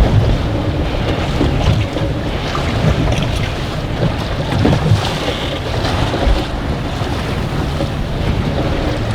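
Strong wind buffeting the microphone over choppy water slapping around a small fishing boat: a steady, gusty rumble with no single standout event.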